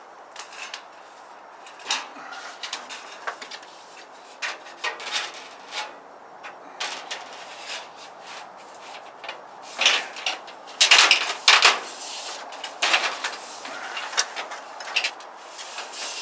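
A long soffit panel being pushed and slid into place overhead, its tongue worked into the groove of the next strip: irregular scraping, rattling and clicking, busiest and loudest a little past the middle.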